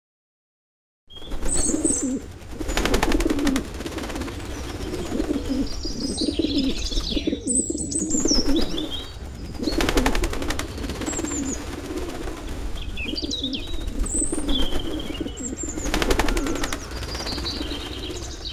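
Bird ambience: pigeons cooing low and continuously, with small birds chirping and whistling above them and a few short fluttering bursts. It starts about a second in.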